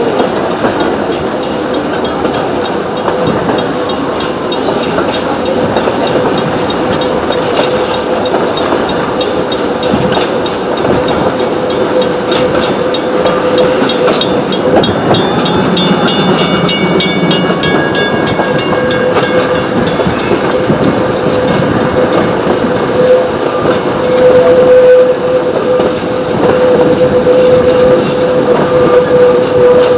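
Narrow-gauge train of vintage wooden carriages running along the track, heard from a carriage window: a continuous rumble and rattle of wheels on rails, with a steady tone running through it. Midway a level-crossing bell rings rhythmically for several seconds as the train passes the crossing.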